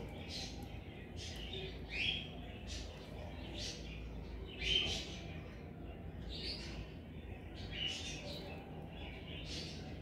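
Cockatiels chirping: short calls repeated every second or so, the loudest about two and five seconds in, over a steady low background hum.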